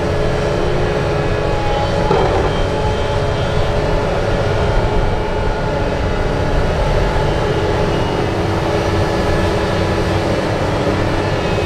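Doosan DX225LCA crawler excavator working: its diesel engine runs steadily under load with a steady whine over a deep rumble as it digs and swings loads of soil to a dump truck.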